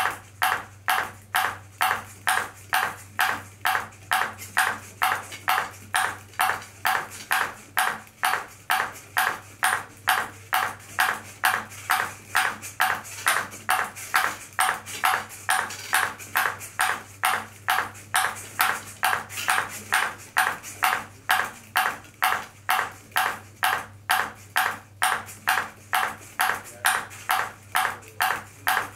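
A ping pong ball bouncing over and over on a robot's motor-driven paddle: sharp, even ticks about twice a second, kept up without a break, over a faint steady low hum.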